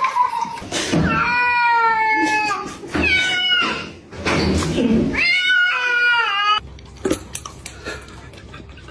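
Domestic cat meowing loudly: three long, drawn-out yowls that slide down in pitch, about a second in, three seconds in and five seconds in.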